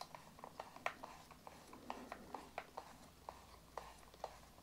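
Faint, irregular small clicks of a hand screwdriver turning a screw into the plastic battery lock housing of an e-bike battery.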